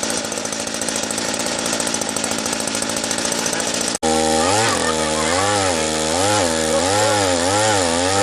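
Small engine of a walk-behind rotary tiller running steadily; after a short break about four seconds in, its pitch rises and falls again and again, roughly once every 0.7 seconds.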